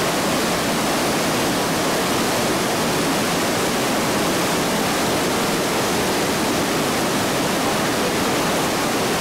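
The Iguazu Falls heard close up: a huge volume of water plunging and crashing into the pool below, making a loud, steady, even rush that does not let up.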